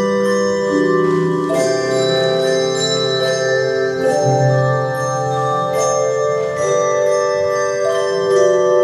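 Instrumental music with no singing: ringing, bell-like chords held and changing every second or two.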